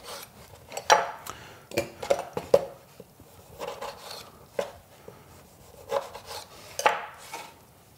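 A knife cutting a fresh lime into wedges on a wooden cutting board: several separate, irregular cuts, each ending in a knock of the blade on the board, with quieter scraping between them.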